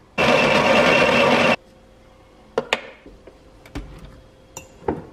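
Breville burr coffee grinder running for about a second and a half, grinding beans into a portafilter, followed by several sharp clicks and clanks as the metal portafilter is handled and locked into the espresso machine.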